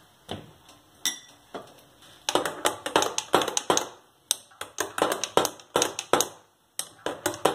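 Metal teaspoon clinking against the inside of a drinking glass while stirring buttermilk: a few scattered taps at first, then rapid clinking, several a second, from about two seconds in.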